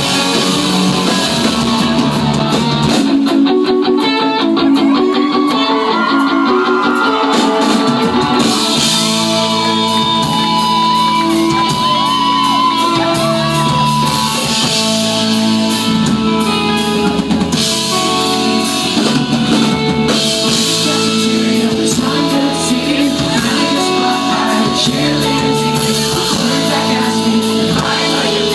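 Live rock band playing in a hall: electric guitars, bass and drum kit with sung vocals, recorded from within the crowd. The low end thins out about three seconds in, then the full band comes back in with a steady beat about eight seconds in.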